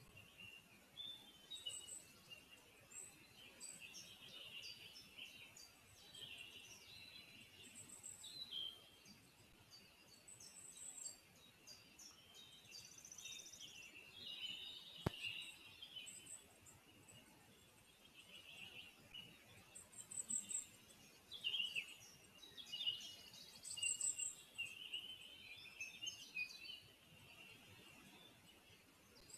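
Faint chorus of small forest songbirds, many short high chirps and trills overlapping, with one sharp click about halfway through.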